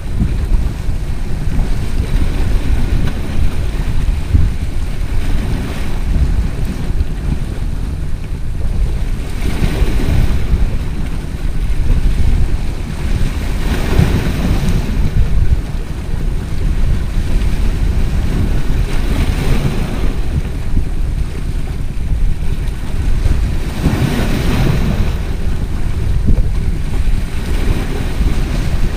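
Wind buffeting the microphone over small sea waves washing against rocks, with a swell of wash every four to five seconds.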